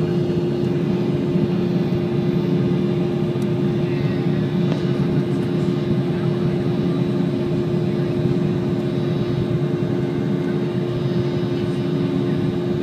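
Steady cabin noise of an Embraer E190 airliner under power, its two GE CF34 turbofans making an even rushing drone with a constant humming tone through it.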